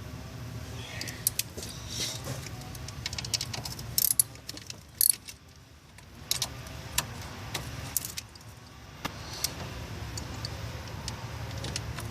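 Irregular metallic clicks and clinks of hand tools and wiring connectors being worked while the alternator's wires are disconnected, with two louder clanks about four and five seconds in.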